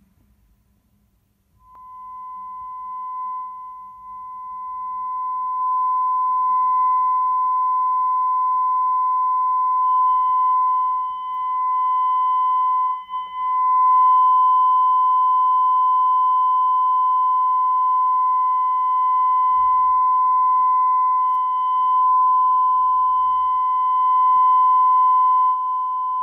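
A vintage 1938 Siemens 8-inch field-coil loudspeaker playing a steady 1 kHz test tone from a tone generator, with its field coil energised at about 80 V DC. The tone comes in about two seconds in, grows louder over the next few seconds, and dips briefly twice near the middle.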